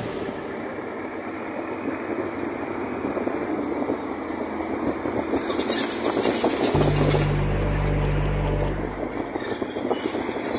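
A moving road vehicle heard from inside: steady engine and road noise, with a deeper engine drone for about two seconds starting roughly seven seconds in.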